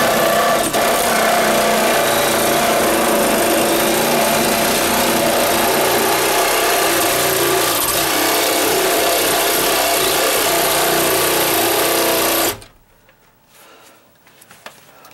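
Cordless reciprocating saw cutting through a wooden 2x4 stud, running steadily for about twelve seconds and then stopping abruptly.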